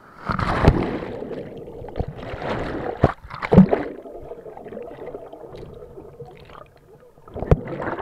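Riders splashing down from a water slide into a pool: a loud rush of splashing water, then muffled underwater gurgling and bubbling as the camera goes under, and another splash near the end as it breaks the surface.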